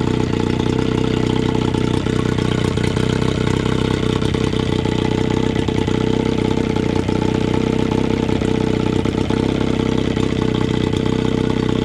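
1978 Johnson 9.9 two-cylinder two-stroke outboard idling steadily while it warms up.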